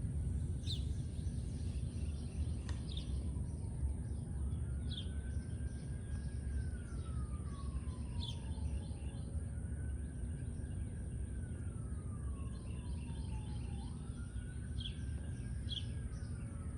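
A siren wailing, its pitch rising and falling slowly about every four to five seconds, over a steady low outdoor rumble. Birds chirp briefly now and then.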